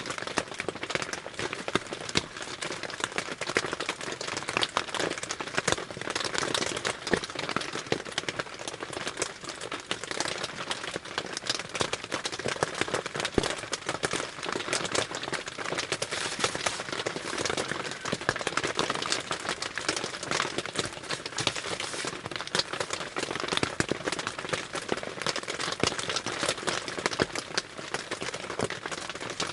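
Rain pattering steadily on a tarp shelter roof, a dense, unbroken stream of small taps.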